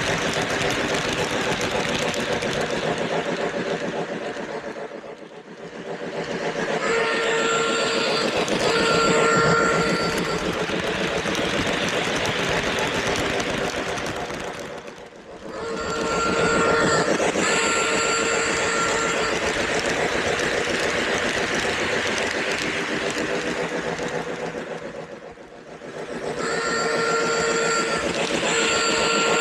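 Lionel LionChief Plus O gauge Hudson model steam locomotive and passenger cars running on three-rail track: a steady rolling rumble of wheels and motor. It falls away sharply about every ten seconds, three times, and comes back each time, with steady tones coming in at its loudest.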